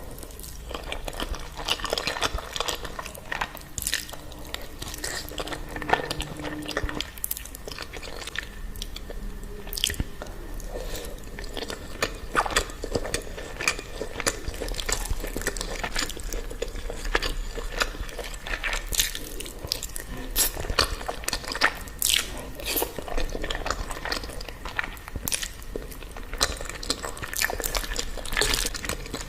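Close-miked eating sounds: a person chewing and biting a mouthful of creamy Alfredo pasta, with many irregular wet mouth clicks and smacks.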